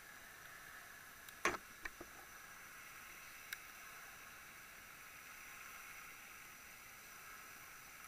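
Steady underwater hiss picked up through a sealed dive camera. A sharp knock comes about one and a half seconds in, followed quickly by two lighter clicks, and another single click comes a couple of seconds later.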